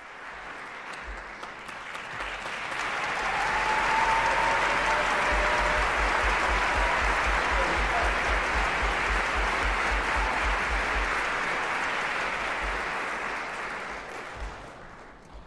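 Theatre audience applauding, greeting a soloist as he walks on stage. The clapping swells over the first few seconds, holds steady, and dies away near the end.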